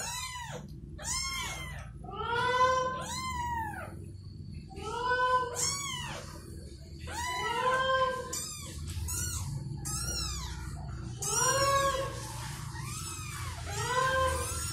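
Newborn kittens mewing over and over, short high cries that rise and fall in pitch, while they jostle for a teat to suckle: hungry cries of kittens competing to nurse.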